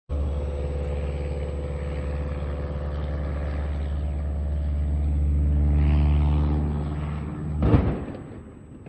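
Small single-engine propeller plane's engine running at full power in a steady drone that swells as the plane passes. About seven and a half seconds in it cuts off at a loud crash as the plane hits the ground on take-off, and the noise dies away.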